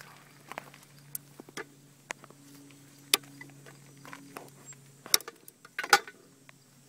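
Hoof nippers cutting through the toe of a chronically foundered pony's front hoof wall: a few sharp snaps, loudest near the end, with smaller clicks between. The dead, overgrown toe in front of the damaged lamina is being taken off.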